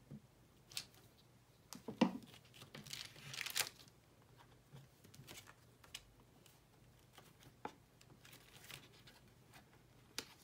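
Paper and card being handled, glued and pressed flat by hand: quiet rustles and light taps, with a knock about two seconds in and a longer rustling scrape just after it.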